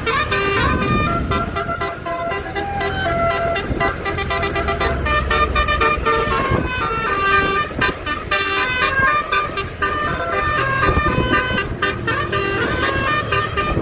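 Basuri telolet multi-tone horn on an expedition truck playing its new tune, steady horn notes stepping from pitch to pitch in a melody, over the truck's engine rumble.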